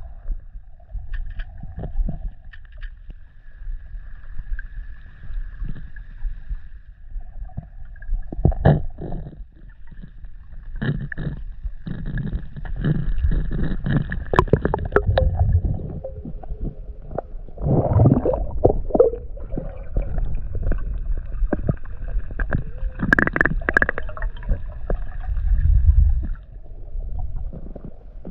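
Muffled underwater sound picked up through a camera housing during spearfishing: low rumbling and bubbling with frequent knocks and clicks, and faint steady whining tones that come and go.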